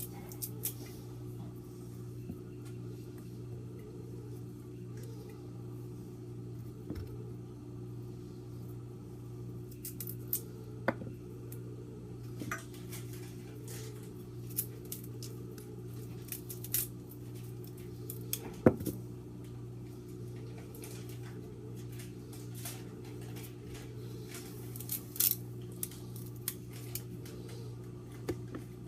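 Kitchen clatter: scattered, irregular clinks and knocks of utensils and dishes as broccoli is cut up, over a steady low hum.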